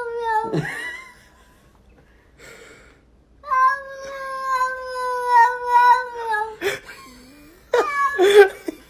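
Domestic cat yowling: long, drawn-out yowls held at a nearly steady pitch, the second lasting about three seconds, then short harsh bursts near the end. A cat with its fur puffed up, warning off a newly introduced kitten.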